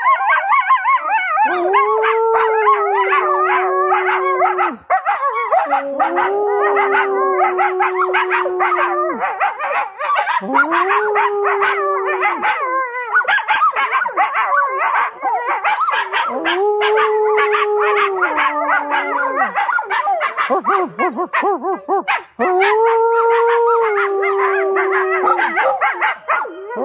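A pet coyote and a dog howling together: a run of long, steady howls, each two to three seconds long and dropping a step near its end, coming about every four to five seconds, with a fast chatter of yips and barks over them the whole time.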